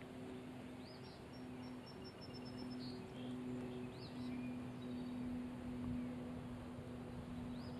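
Spinning reel cranked in a steady retrieve of a small swimbait: a faint low whir that stops briefly a few times. Birds chirp now and then.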